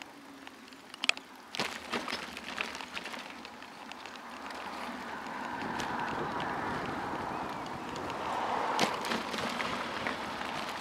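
Bicycle riding on a paved cycle path: sharp knocks and rattles from the bike over bumps about one to three seconds in, then a steady rolling hiss of tyres and moving air that grows louder from about four seconds in.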